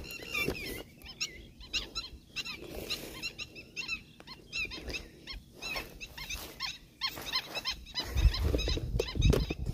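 Many short, high chirping animal calls, repeating a few times a second. A louder low rumble comes in about eight seconds in.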